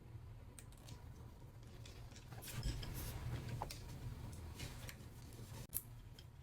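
Faint clicks and light scraping of small parts and hand tools being handled while steering links are fitted to a mini RC crawler, with a sharper click near the end.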